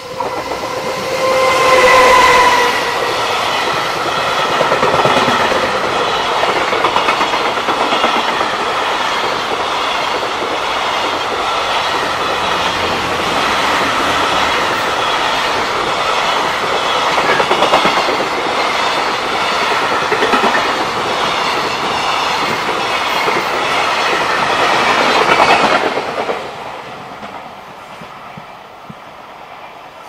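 EF210 electric locomotive passing with a short horn about two seconds in. Then a long container freight train rolls by with a steady rhythmic clickety-clack of wheels over the rail joints. The noise drops away suddenly about 26 seconds in as the last wagon passes.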